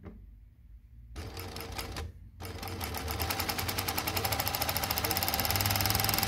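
Consew 228R-11-1 post-bed single-needle lockstitch industrial sewing machine stitching denim. A short burst of stitching starts about a second in and stops briefly. A longer run follows whose even needle strokes get faster and louder toward the end, over a steady motor hum.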